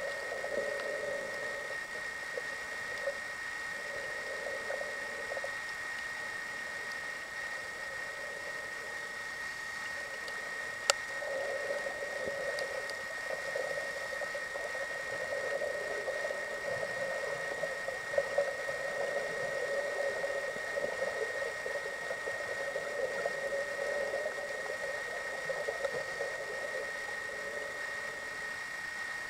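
Underwater ambient noise heard through an underwater camera: a steady high whine over a fluctuating low rush, with a sharp click about eleven seconds in and a few faint ticks later.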